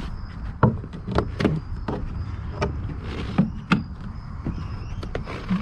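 Sharp, irregular clicks and light knocks of small hardware being handled and clipped onto a plastic kayak bow mount, about a dozen over a few seconds, over a low steady rumble.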